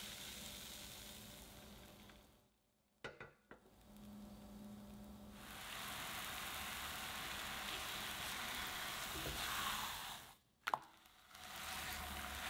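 Crepe batter sizzling steadily in a hot ceramic-coated frying pan over low heat, with a couple of short dropouts and a few light clicks. A sharp click comes near the end as a spatula works under the crepe's edge.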